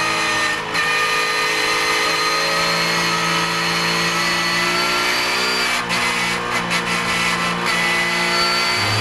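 In-car sound of a Porsche 991 GT3 Cup race car's flat-six engine running at fairly steady revs on part throttle through a corner. There are a few brief dips in the sound, one about a second in and several in the second half.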